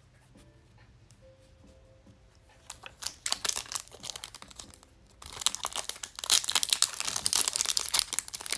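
A foil trading-card pack wrapper being torn open by hand. After a nearly quiet start come scattered crackles, then from about halfway a dense run of crinkling and tearing foil.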